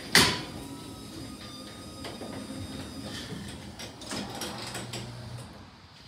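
Sectional garage door being raised by its electric opener: a sharp thump just after the start, then the steady rumble and whir of the door rolling up its tracks, easing off near the end.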